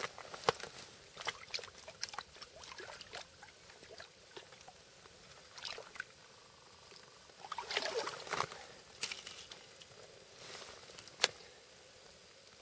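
Irregular small taps, clicks and scuffs, with a denser flurry of scraping about eight seconds in and one sharp click near the end.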